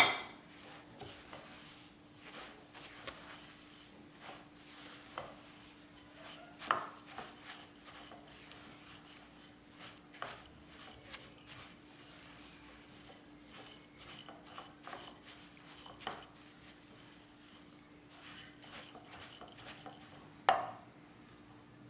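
Utensil clinking, knocking and scraping against a mixing bowl while oat cookie dough is stirred. The clicks are scattered, with a few louder knocks, one of them near the end.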